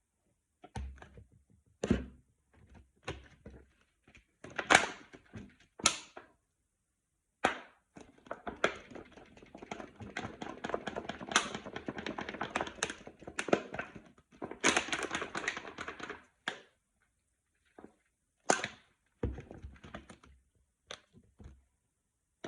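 Plastic bottle being handled: separate knocks and taps, then about eight seconds of rapid, continuous rattling as it is shaken, then a few more knocks.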